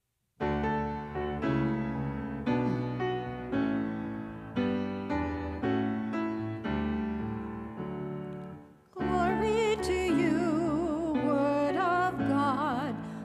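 Grand piano playing a slow introduction of struck chords, each fading before the next. About nine seconds in, a singer comes in over it with a wide vibrato.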